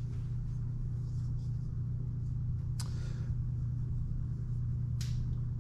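Steady low hum, with two faint light clicks about three seconds in and again near the end.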